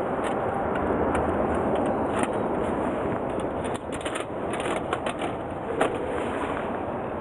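Wood campfire crackling, with many small irregular pops and snaps over a steady rushing noise.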